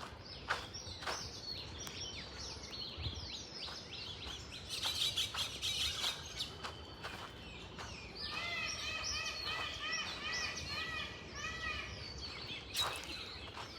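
Several birds chirping and calling, with a dense burst of chatter about five seconds in. From about eight seconds in, one bird repeats a run of short arched notes, several a second, for about four seconds.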